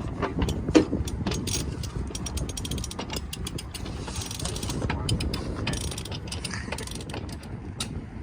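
Sailboat winch being cranked to haul up a halyard under load, its pawls giving a run of rapid clicks.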